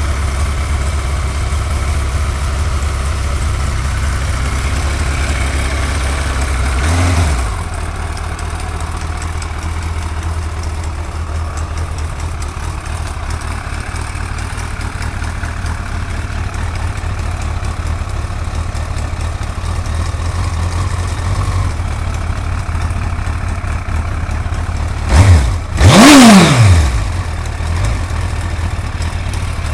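Suzuki GSX-R1100 inline-four motorcycle engine idling with a ticking noise. It is blipped twice near the end, the second rev rising sharply and dropping back to idle.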